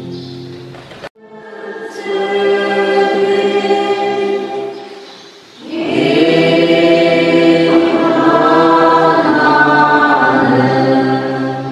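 A group of voices singing a hymn together in long held notes. The singing breaks off briefly about a second in, then comes back, and a louder passage starts around six seconds in.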